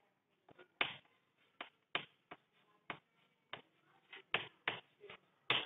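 Chalk on a chalkboard while words are written: a dozen or so short, irregular taps and clicks as the chalk strikes and lifts off the board.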